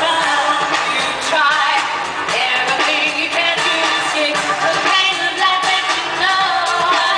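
Live pop concert music with singing over a steady band and backing track.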